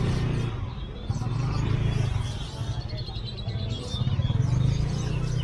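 Street ambience: a steady low engine hum from passing traffic that swells and fades, with voices in the background.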